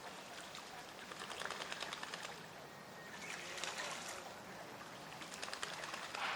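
Northern shovelers dabbling at the water surface, sieving water through their bills: three bursts of rapid, splashy pattering.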